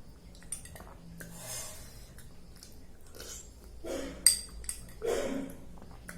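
Close-up eating sounds: chewing and breaths with scattered small clicks, and one sharp metallic clink of cutlery against a plate a little past four seconds in.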